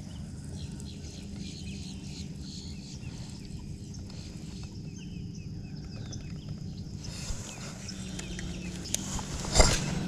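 Birds chirping in many short high calls over a steady low hum. From about seven seconds in a hiss comes up, and near the end there is one sharp, loud knock.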